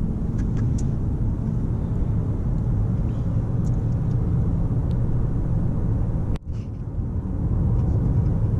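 Steady low road and engine rumble inside a moving car's cabin, with a few faint ticks. The sound cuts out abruptly for a moment about six and a half seconds in.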